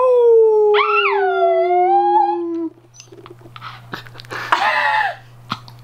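A man and a small dog howling together: one long howl sliding slowly down in pitch, with a second howl rising and then falling over it, both breaking off about two and a half seconds in. A few quieter short sounds follow, with a brief raspy vocal sound near the end.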